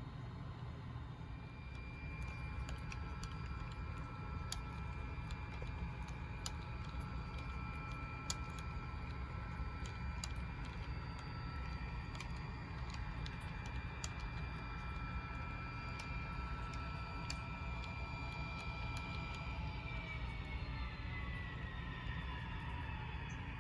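HO scale model diesel locomotive's sound-decoder engine sound playing through its small speaker: a steady running drone with a whine of several tones that slide down in pitch about twenty seconds in, with scattered light clicks.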